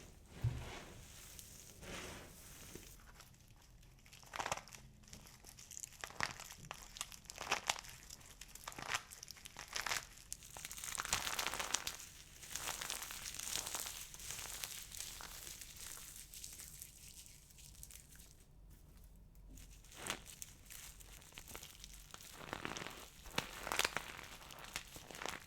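Dry soap balls being crushed and crumbled by hand, crackling and snapping irregularly, with a denser run of crunching in the middle.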